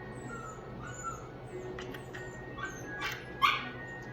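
Infant fussing: a string of short, high, squeaky whimpers, about two a second, with a sharp louder sound about three and a half seconds in.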